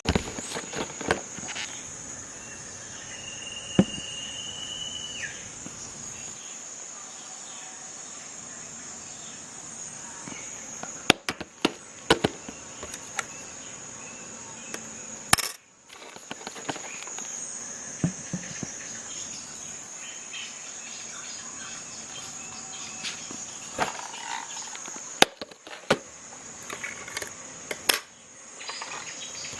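Scattered sharp clicks and light knocks of small parts and plastic being handled while a laptop is worked on, over a steady high-pitched hiss.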